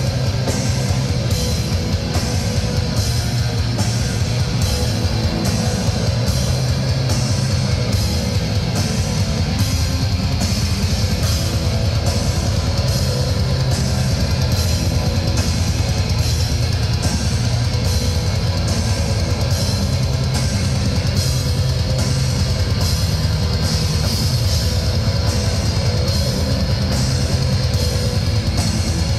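Black metal band playing live, heard from within the crowd: distorted guitars and drum kit in a dense, unbroken wall of sound. Cymbal strokes come at an even pulse, about three every two seconds.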